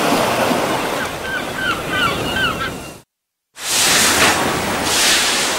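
Open-sea wave noise with gulls giving several short cries over feeding water. It cuts off abruptly about three seconds in, and after half a second of silence a rushing water noise returns and swells twice.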